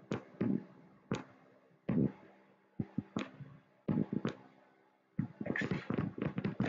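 Stylus tapping and scratching on a tablet screen in short sharp clicks while a circuit symbol and its label are drawn, growing into a quick flurry near the end, over a faint steady low hum.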